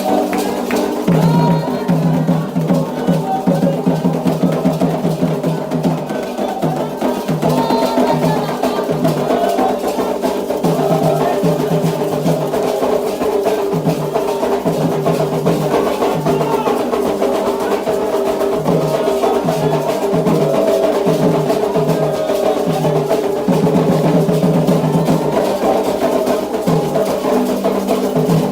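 Candomblé ritual music: fast, continuous hand-drum playing with a sharp clicking percussion pattern over it.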